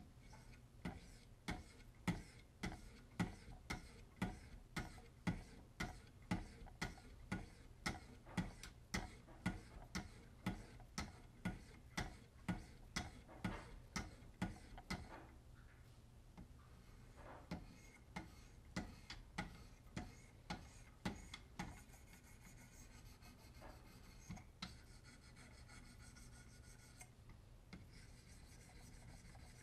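Wicked Edge sharpener's diamond paddles stroking along a clamped knife blade to put an edge on it. The faint, rasping strokes come at a steady pace of a little under two a second for about fifteen seconds, then turn slower and irregular, and end as faint rubbing.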